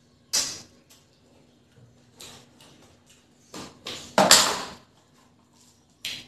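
Eating by hand from a steel plate: a series of short, wet noises from mouthfuls of rice and chicken curry and from fingers mixing rice and curry on the plate, the loudest and longest about four seconds in.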